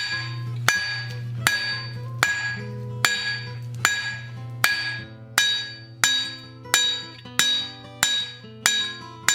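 Blacksmith's hand hammer striking a hot square steel bar on an anvil in a steady rhythm, about one blow every three-quarters of a second, each with a clear metallic ring, drawing the bar out thin and flat.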